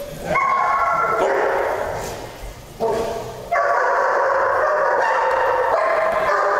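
A dog crying out in two long, drawn-out calls, the first starting just after the beginning and the second about halfway through, each lasting close to three seconds.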